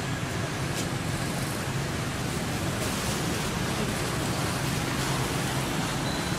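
Steady outdoor background noise: an even hiss with a low rumble underneath, with no distinct events.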